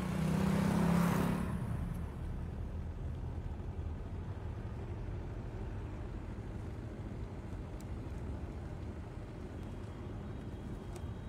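Car engine and road noise from a Hindustan Ambassador taxi. It is louder for the first second or so as the car drives by, then settles into a steady low rumble as heard inside the moving car.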